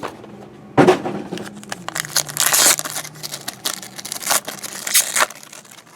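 Plastic wrapping or pack wrapper crinkling and tearing as a sealed trading-card box or pack is opened, with a sharp rip about a second in.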